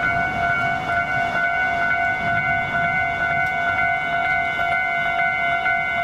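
Level-crossing warning alarm ringing steadily: one pitched electronic ding repeated quickly without a break.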